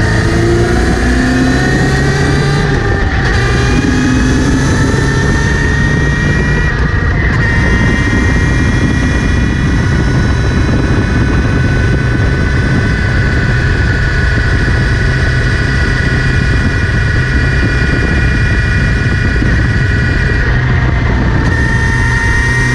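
Kawasaki Z900RS inline-four running in gear, its pitch rising over the first several seconds and then holding steady. A high whirring whine rides over the engine; the owner traces it to the front sprocket area, where it appeared after the chain was cleaned and relubed.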